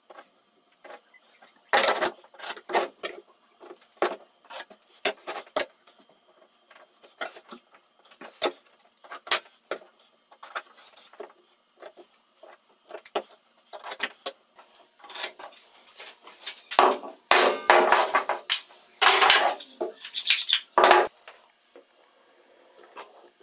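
Plywood block, steel square and pencil handled on a workbench: a string of light knocks and clicks as the pieces are set down and moved. In the second half come several louder scraping passes about a second long each.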